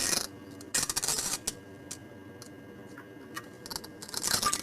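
Wet diarrhea fart sound effect: a crackly noisy burst at the start and another about a second in, scattered short pops, and a longer, louder burst near the end.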